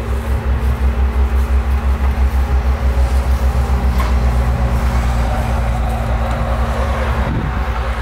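Vehicle engine idling close by: a low, throbbing rumble with a steady hum above it that stops about seven seconds in. A single click comes about four seconds in.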